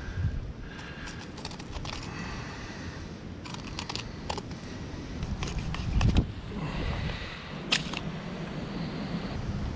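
Filleting knife cutting through a pink snapper's rib bones, clicking and crackling in several short runs. A dull thump comes about six seconds in.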